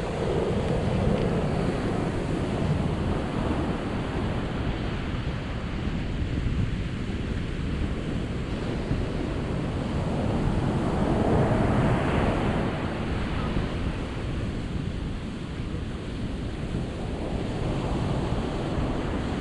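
Ocean surf: waves breaking and washing up a shore in a continuous rush, swelling louder as a wave breaks at the start and again about ten to twelve seconds in.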